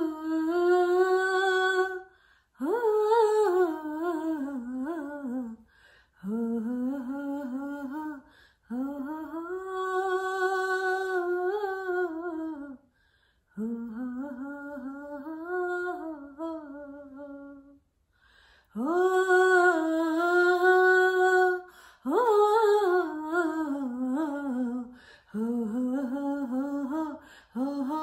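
A woman singing solo and unaccompanied: held notes with turns and slides in pitch, in phrases of a few seconds, each followed by a short breath pause.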